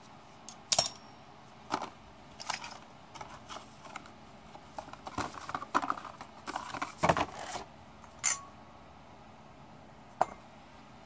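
Metal hand tools and parts clinking and clattering as they are picked up and set down on a concrete floor: a sharp, briefly ringing clink about a second in, a few single knocks, and a busier stretch of clatter in the middle.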